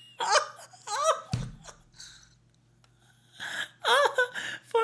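A man laughing hard in short gasping bursts. He goes quiet for about a second in the middle, then breaks into louder laughter near the end.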